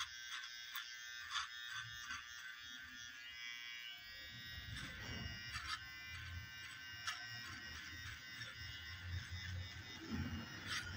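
Cordless hair trimmer buzzing steadily with a high whine as it edges the hairline around the ear, with a few sharp clicks.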